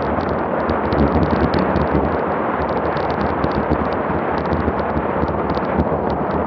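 Loud wind rushing and buffeting over a Garmin VIRB action camera's microphone on a bicycle descending at about 36 mph, with small crackles through it.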